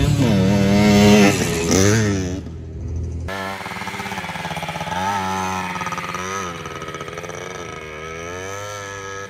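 Dirt bike engines revving and pulling away, their pitch rising and falling with the throttle. After a sudden break about two and a half seconds in, a small dirt bike's engine runs with repeated rising and falling revs as it rides around the track, growing fainter toward the end.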